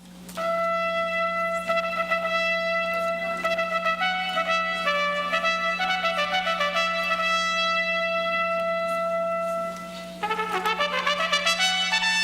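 Instrumental music with a brass-sounding lead: a long held note with shorter notes moving above it, then a quick run of notes about ten seconds in. A steady low hum runs underneath.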